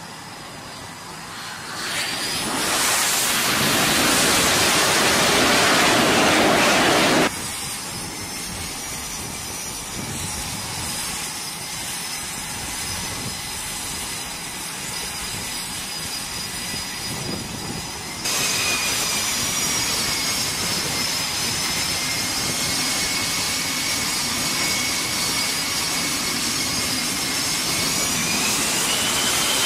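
Jet engines on an aircraft carrier flight deck. A loud jet roar builds about two seconds in as a jet comes in low over the deck, then cuts off abruptly. Steady jet engine noise with several high whining tones follows, from F/A-18 Super Hornets running on deck, with one tone rising near the end.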